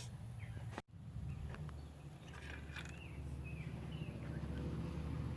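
Faint bird chirps over a low steady rumble that grows a little louder toward the end, broken by a brief total dropout about a second in.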